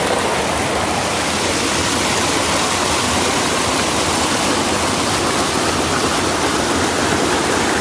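Steady rush of water from a tiered waterfall cascade, loud and even throughout.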